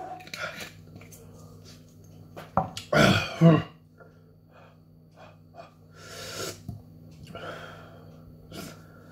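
A man gasping and breathing hard after chugging a bottle of hot sauce, with a loud throaty vocal burst about three seconds in and another breathy exhale around six seconds.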